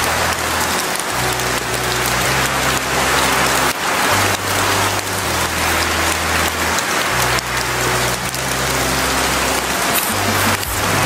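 Steady rain ambience with a low bass or synth line underneath, its notes changing every second or so.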